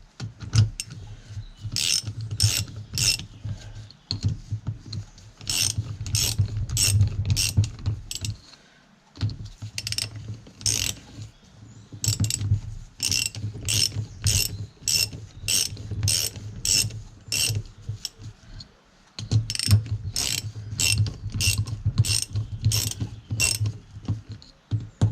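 Socket ratchet wrench clicking in several runs of quick strokes, about two a second, with short pauses between runs, as bolts are run down on the tractor's hydraulic pump.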